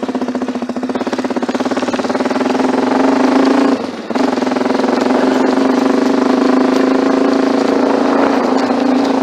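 Engine exhaust rumble, running steadily at raised revs; it swells slightly over the first few seconds, drops briefly about four seconds in, then holds steady.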